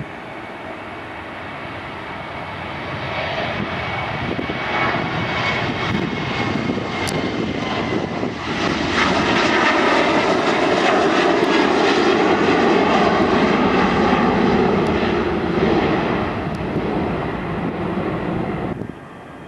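Boeing 737 jet airliner's twin CFM56 turbofan engines at takeoff power: a dense rumble with a thin whine, growing louder as the jet accelerates and lifts off, loudest around the middle as it climbs away, then easing before cutting off abruptly near the end.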